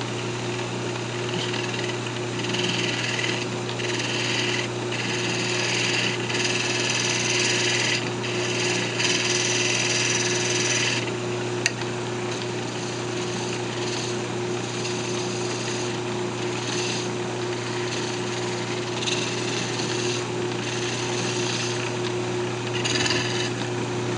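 Wood lathe running with a steady motor hum while a spindle gouge cuts the cocobolo duck call's mouthpiece. The hissing cut comes in spells, heaviest through roughly the first ten seconds and again near the end.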